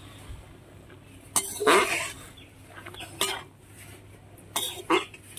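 A perforated metal spoon knocking and scraping against an aluminium wok several times while drumstick flowers are stirred in boiling water. There is a louder cough-like sound about a second and a half in.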